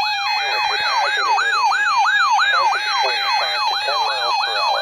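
Electronic yelp-style siren: a fast wail that sweeps down and back up about three times a second over a steady tone.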